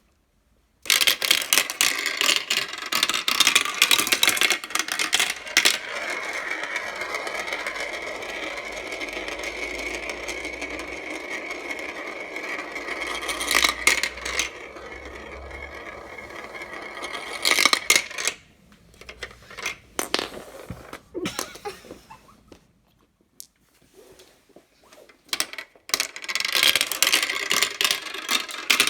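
Marbles rolling and clattering through a marble run: a burst of rapid clicking and rattling, then a long steady rolling rumble broken by a few sharp clacks, sparser clicks, and a dense clatter again near the end.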